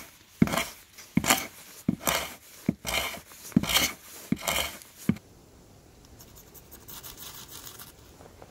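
A Mora knife driven into wood with a wooden baton: seven sharp knocks about three-quarters of a second apart. The knocks stop about five seconds in.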